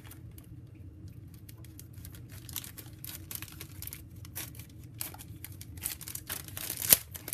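Thick plastic bag crinkling and crackling as it is cut open with scissors and pulled apart by hand, with irregular small snips and rustles; one sharper click near the end.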